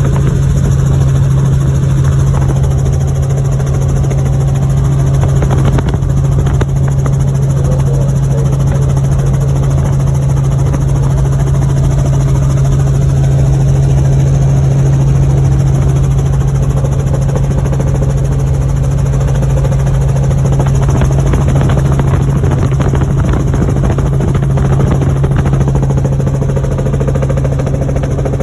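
Helicopter in flight: a loud, steady drone of rotor and engine with a strong low hum that holds unchanged.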